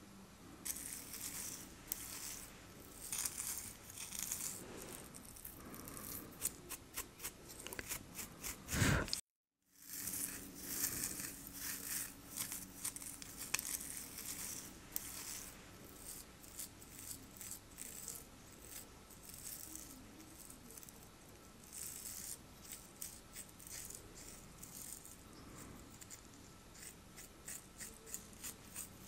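Fingertips and long acrylic nails scratching and picking over a man's face and beard stubble close to the microphone: dense, crisp crackles and clicks. The sound cuts out for about half a second around nine seconds in.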